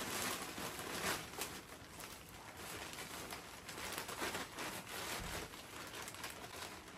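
Compost being poured from a plastic bag into a planter tub: the bag crinkles while the compost slides out and falls onto the soil, an irregular rustling throughout.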